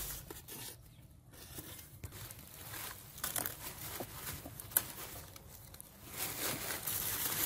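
Dry pumpkin leaves and vines rustling and crackling as they are handled, with scattered light clicks and one sharp click a little past halfway.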